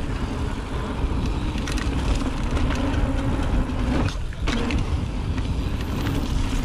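Mountain bike descending a dirt flow trail: wind rushing over the camera microphone, the tyres rolling on dirt, and rattles and clicks from the bike. The rolling noise drops out briefly about four seconds in.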